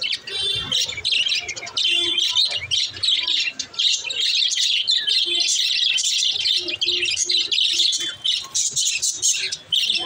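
A flock of budgerigars chirping and chattering, many short high calls and trills overlapping with no pause.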